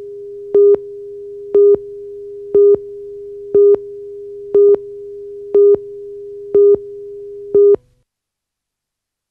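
Countdown leader's test tone: a steady mid-pitched tone with a louder, higher beep on it once a second, eight beeps in all. It stops about eight seconds in.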